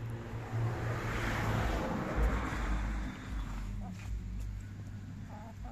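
A rushing noise with a low rumble swells and fades over the first three seconds or so. A hen clucks briefly near the end.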